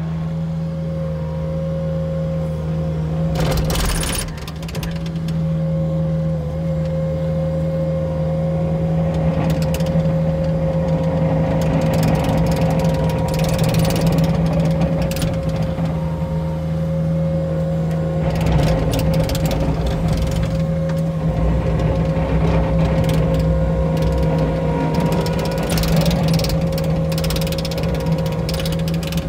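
Bobcat skid steer's engine running under load while its hydraulic brush cutter spins, a steady whine over the engine's hum. Irregular bursts of crackling and snapping come as brush is cut and chips are thrown.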